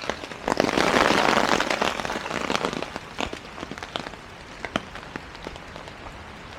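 Steady rain falling, with scattered sharp ticks of drops. A louder rushing swell comes about half a second in and fades away over the next two seconds.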